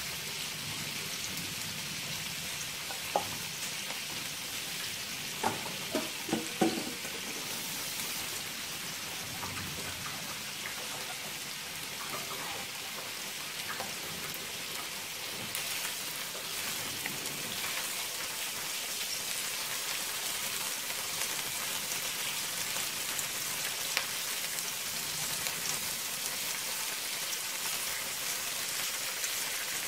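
Whole prawns sizzling in oil in a wok: a steady hiss, with a few sharp knocks about three and six seconds in. The sizzle grows a little louder in the second half, and the prawns are stirred with a spatula near the end.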